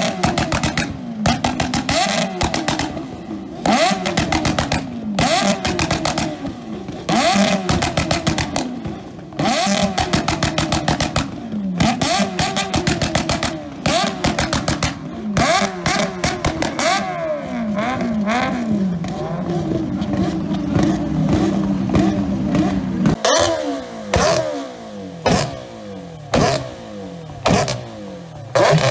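Motorcycle engines with oversized open exhausts revved hard in quick repeated blips, several at once, with sharp pops from the pipes. Near the end a single bike is blipped about once a second while its exhaust spits flame.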